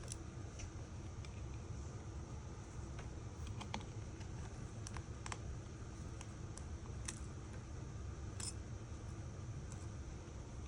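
Scattered small clicks and taps of hand tools and small phone parts being handled during an iPhone 5 teardown, over a steady low hum.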